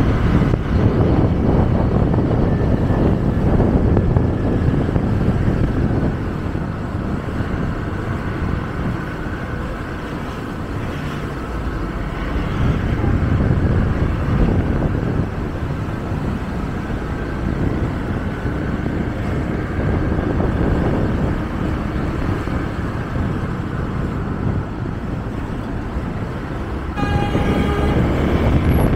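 Continuous rumble and road noise of a moving vehicle in city traffic, heard from on board and rising and falling in level. A horn sounds briefly near the end.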